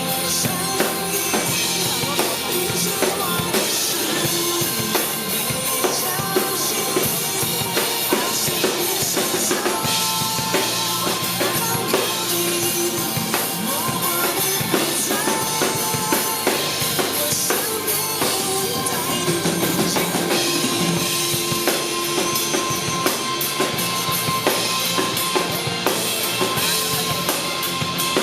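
Instrumental pop music with a steady drum-kit beat and long held melody notes, without singing, played over a street performer's speakers.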